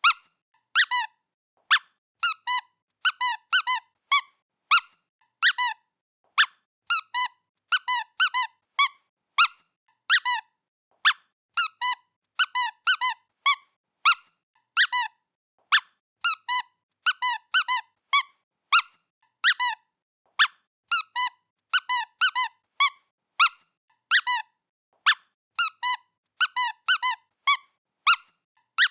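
A squeaky cat toy being squeezed over and over: short, high squeaks, often in quick pairs, coming at irregular intervals of under a second with silence in between.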